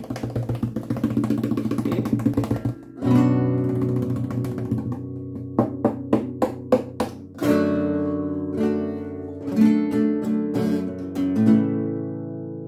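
Nylon-string classical guitar played solo: fast strumming for the first few seconds, then a short run of single plucked notes and several struck chords, the last chord left to ring and fade away.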